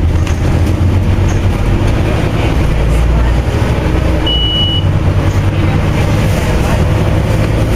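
Scania OmniCity double-decker bus's five-cylinder diesel engine running as the bus drives along, a steady low rumble heard from inside the passenger saloon. A short high beep sounds once about halfway through.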